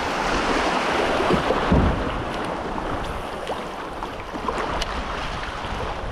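River water rushing through a shallow riffle around a fishing kayak running down it, with wind buffeting the microphone. The rush eases after about two seconds as the kayak passes onto calmer water.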